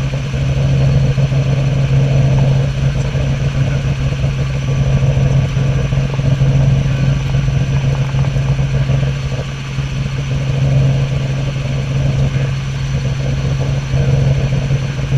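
Robinson R44 helicopter in flight, heard from on board: a loud, steady drone of its six-cylinder Lycoming piston engine and rotors, with one strong low hum and a constant rush above it.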